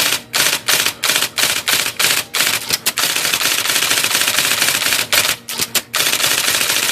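IBM Selectric II electric typewriter typing a test run: separate keystrokes about three a second, then a fast continuous run of strikes, a brief pause, and another fast run near the end. The typing is a check for a misselection fault that prints wrong or partial characters.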